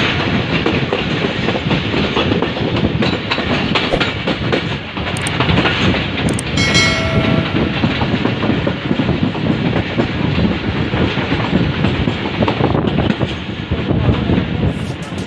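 Passenger coaches of a moving diesel-hauled express train, heard from an open carriage window: a steady rumble and clickety-clack of wheels on rail. A brief pitched tone sounds about seven seconds in.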